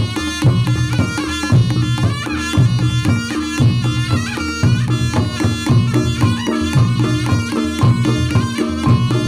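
Reog Ponorogo gamelan music: a slompret (shrill double-reed shawm) plays a wavering melody over kendang drumming and a low beat that repeats about once a second.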